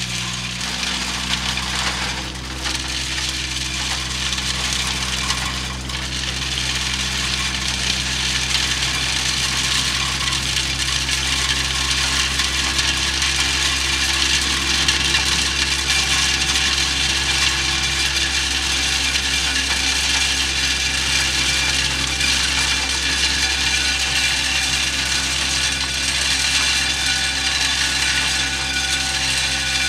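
Mud Dog 1200 hydro excavator vacuuming mud and gravel up its dig tube: the steady rush of air drawn by the truck's Roots blower, with debris being sucked up the hose.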